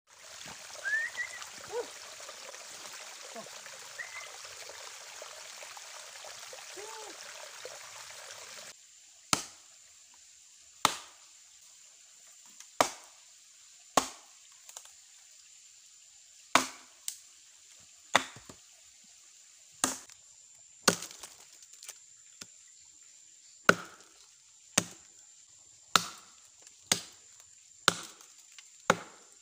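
A steady hiss with a few short chirps, then, after about nine seconds, a blade chopping into a fallen log by hand: sharp single blows every second or two, coming closer together near the end.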